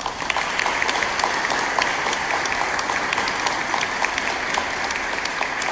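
Congregation applauding, many people clapping at once.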